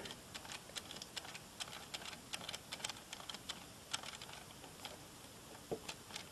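Faint, irregular clicking and ticking of plastic Lego Technic parts as the tractor's steering linkage and gears are worked by hand.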